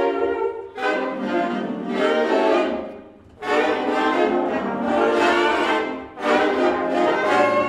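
A big band saxophone section playing long sustained chords in phrases of two to three seconds, with brief breaks between them.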